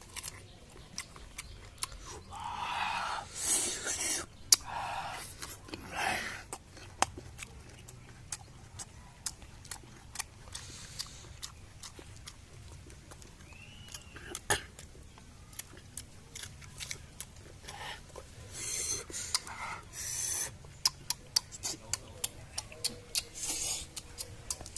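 A person eating fruit: chewing with many small wet mouth clicks, and several louder bites or crunches, clustered about three, six, nineteen to twenty and twenty-three seconds in.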